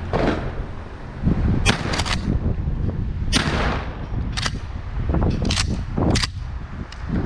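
A .410 pump-action shotgun fires twice at doves, each report a sharp crack, with sharp clacks from the gun being worked in between and afterwards. Wind rumbles on the microphone throughout.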